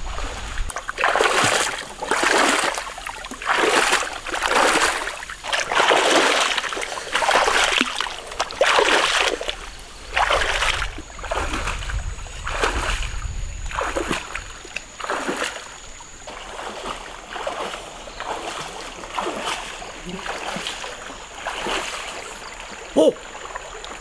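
Water splashing about once a second as a person wades through a shallow river, pushing a long pole into the water. The splashes grow fainter and sparser after about fifteen seconds.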